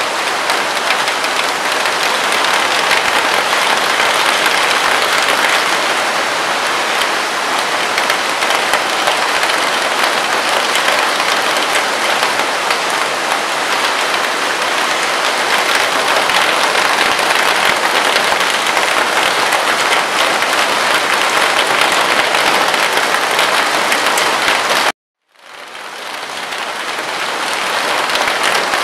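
Steady rain falling on a camping tent, a dense even hiss of many drops. Near the end it cuts out suddenly for about half a second, then fades back in.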